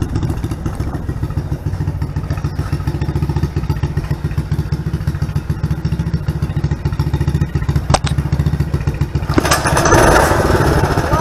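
DuroMax 208cc single-cylinder engine on a homemade four-wheeler idling with a steady putter, with a single click about eight seconds in. Shortly after, the throttle is opened and the engine gets louder.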